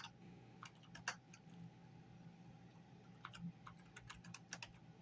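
Faint, irregular clicks of typing on a computer keyboard, a dozen or so keystrokes scattered through, over a faint steady hum.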